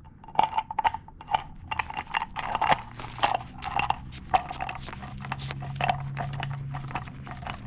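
Tub spout being tightened onto its taped threaded pipe with a small wrench: irregular clicks and creaks of the wrench and metal on the threads. A faint low hum comes in about three seconds in.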